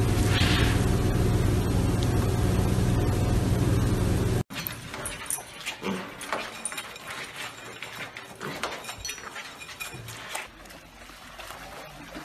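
Background music that cuts off abruptly about four and a half seconds in. It is followed by mini pigs feeding from a bowl: scattered small clicks and crunches of eating, with a few short pig noises.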